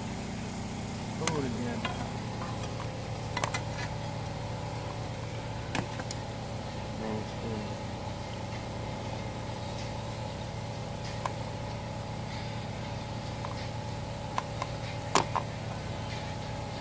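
Steady hum of a running engine, holding several fixed pitches, with a few sharp pops from the wood campfire, the loudest about fifteen seconds in.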